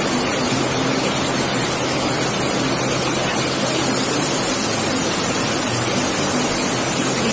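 Water pouring over a low concrete weir into churning whitewater: a loud, steady rush.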